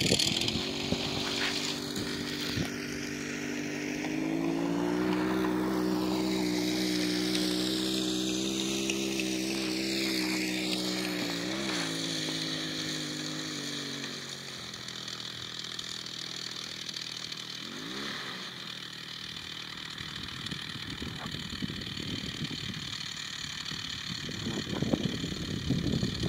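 Small two-stroke chainsaw engine driving a motorized kick scooter, running at a steady high pitch and then fading away after about twelve seconds as the scooter moves off. Uneven low noise rises near the end.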